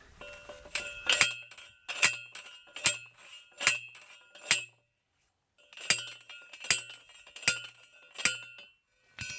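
Manual steel post driver striking the top of a steel T-post, driving it into the ground. The hits ring metallically and come a little faster than one a second, a run of five and then four more after a brief dead-silent break about halfway.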